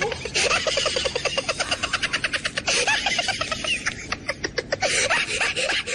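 A person laughing hard: a long run of quick, high-pitched laughs with brief breaks for breath.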